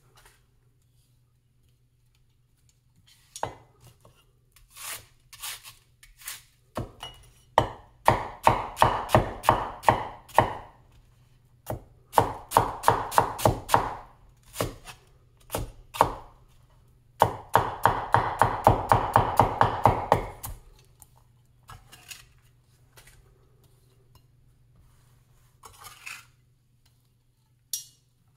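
Big vintage Chinese cleaver chopping red onion on a wooden cutting board. It comes as three fast runs of chops at about five or six strokes a second, with scattered single cuts before and between them.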